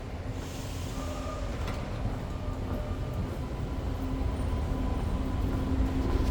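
Interior of an REM light-metro car pulling away from a station: a low rumble that grows steadily louder, with a faint thin whine from about a second in.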